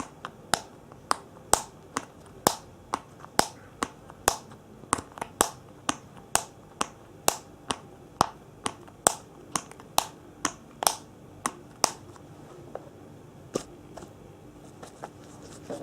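Crisp, sharp clicks or snaps in a steady rhythm, about two a second, thinning to a few scattered clicks after about twelve seconds.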